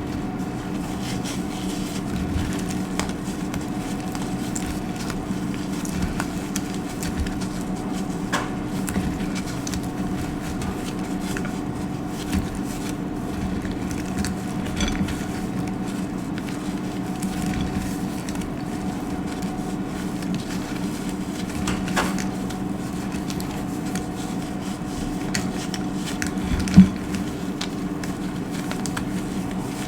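Dry soap being cut: scattered small crackling crunches over a steady low hum, with one sharp, loud crack near the end.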